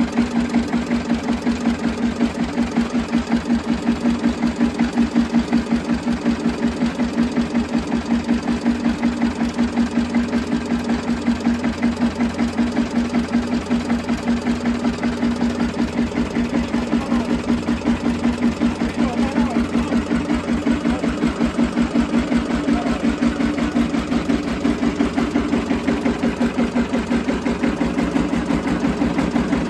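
R.A. Lister diesel engine driving a generator, running steadily with an even, rapid exhaust beat.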